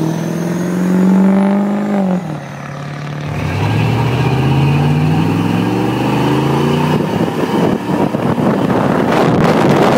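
Duramax turbo-diesel V8 pickup accelerating hard while rolling coal: the engine climbs in pitch, drops back on an upshift about two seconds in, then climbs again. From about seven seconds on, wind buffets the microphone.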